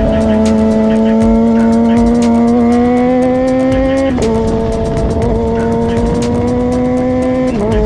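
Motorcycle engine pulling under load, its pitch climbing slowly and then dropping sharply at an upshift about four seconds in and again near the end.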